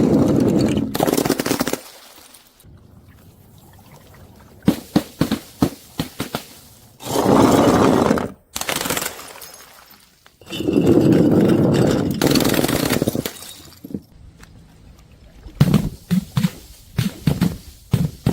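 Glass bottles thrown onto stairs, over and over: loud stretches of smashing glass alternate with runs of sharp knocks and clinks as bottles and shards hit the steps.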